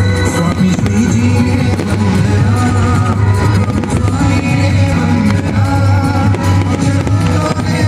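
A song with a singing voice over guitar and drums, playing steadily throughout.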